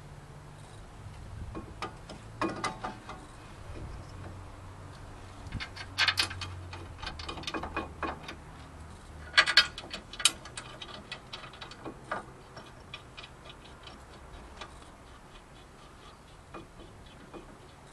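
Sharp metal clicks and clatters of a brake caliper and pads being fitted over a new front brake rotor, in several bunches, the loudest about nine and a half to ten seconds in, then lighter, quicker ticking.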